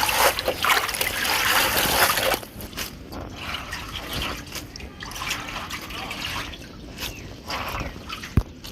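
Water pouring, loudly for the first two and a half seconds, then trickling and dripping more quietly.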